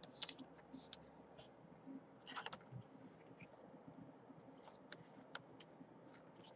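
Faint scattered clicks and a brief rustle of a clear plastic card sleeve being handled as a trading card is slipped into it.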